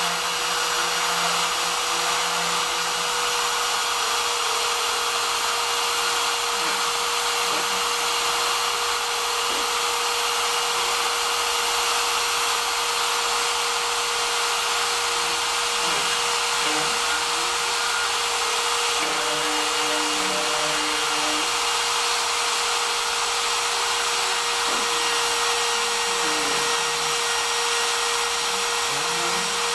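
Homemade CNC router running while cutting: a steady spindle whine over a broad hiss. Short, fainter low tones glide up and down now and then as the axis motors move the machine.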